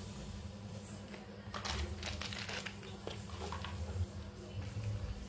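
Handling noises: a clear plastic parts bag rustling, with small clicks and taps from parts being picked up, in several short bursts.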